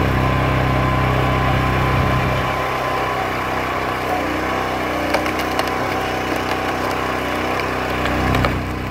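Eastonmade Ultra hydraulic log splitter's engine running steadily as the splitter works through logs, with a few sharp cracks of wood splitting about five seconds in and near the end.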